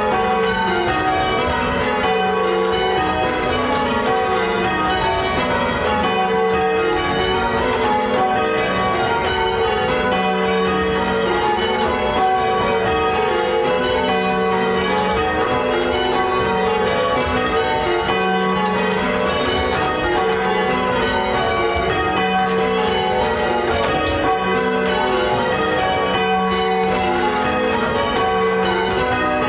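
Change ringing on a ring of eight Gillett & Johnston church bells, the bells struck one after another in a steady, unbroken rhythm.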